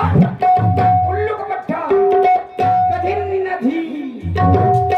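Live stage music: hand-drum strokes whose pitch bends up and down, under long held notes from a melodic instrument.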